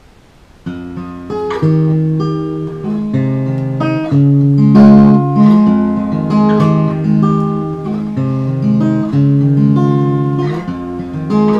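Outro music led by a plucked acoustic guitar playing chords, starting a little under a second in.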